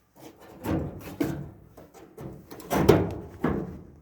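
Several knocks and rattles of a clothes dryer's front panel being worked loose at its release clip, the loudest about three seconds in.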